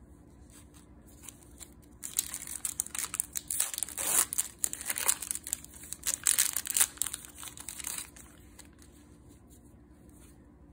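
Plastic wrapper of a Magic: The Gathering booster pack being torn open and crinkled, crackling in a dense run of crisp little bursts from about two seconds in until about eight seconds in.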